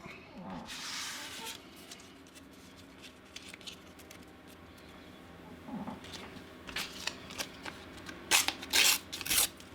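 Paper stickers being handled and flipped through, with a soft rustle about a second in and short crisp rustles and clicks that grow louder near the end.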